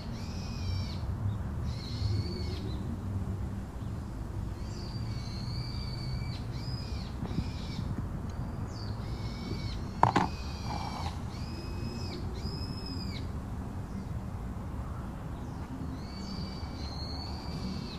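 Birds calling outdoors, repeated short arching chirps every second or so over a steady low background rumble, with one sharp knock about ten seconds in.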